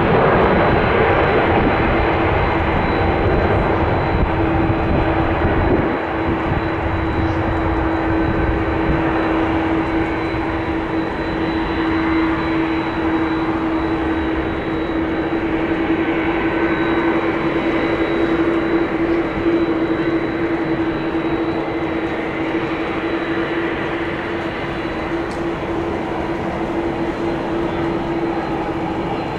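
Airbus A350-900 airliner with Rolls-Royce Trent XWB engines at take-off thrust as it rolls down the runway, lifts off about halfway through and climbs away. Steady jet engine noise with one held droning note, slowly fading as the aircraft gains height.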